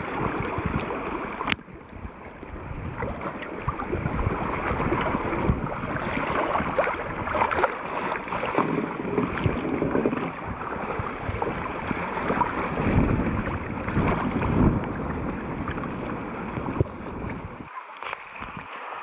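Water sloshing and splashing around a camera in a waterproof underwater case, heard muffled with little treble, in irregular swells and low rumbles. A sharp click comes about a second and a half in.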